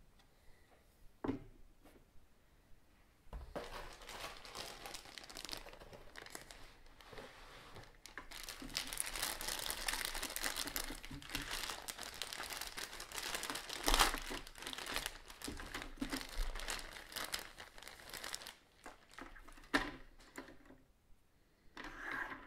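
Clear plastic parts bag crinkling and rustling as it is handled and a black plastic parts tree is pulled out of it. The crinkling is loudest in the middle. There is a single click about a second in and a few light plastic clacks near the end.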